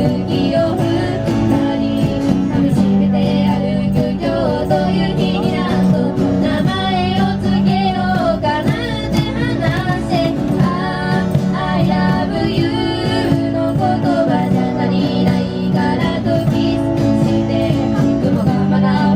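Music: a woman singing with guitar accompaniment over a steady bass line, most likely a band playing live.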